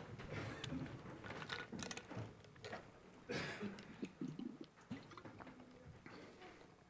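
A congregation sitting back down in their seats: scattered rustling, creaks and small knocks, busiest in the first few seconds and then settling.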